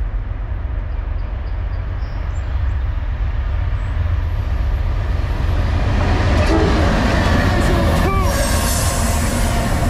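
Freight train of GE diesel locomotives approaching and drawing alongside, its deep engine rumble building steadily louder. From about two-thirds of the way in, high steady whining tones join the rumble as the lead units pass close by.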